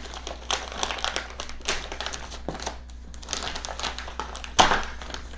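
Plastic poly mailer crinkling and rustling in irregular bursts as it is cut open and pulled apart by hand. The loudest rustle comes about a second before the end.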